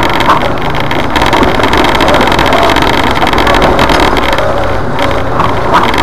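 Jeep Wrangler's engine running steadily as it drives slowly over rough, wet trail ground, heard from inside the cabin, with a few short knocks and rattles.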